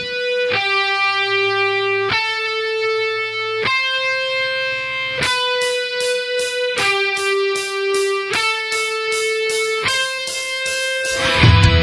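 Background music: an electric guitar plays a slow line of long held single notes, with a pulsing high-end rhythm joining about halfway through. A full heavy rock band crashes in near the end.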